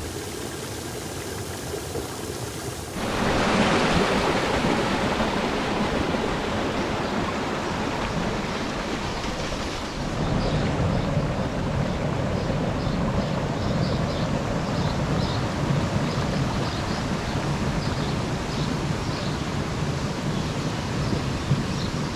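Steady rushing hiss of steam venting from volcanic fumaroles and hot springs. It gets louder and brighter about three seconds in, and a deeper rumble joins about ten seconds in.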